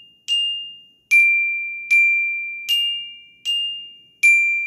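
Orchestra bells (a student glockenspiel with metal bars) struck with mallets, alternating between two notes, F and D (so and mi): six strikes in an even pulse about 0.8 s apart, in the order high, low, low, high, high, low, each note ringing and fading away.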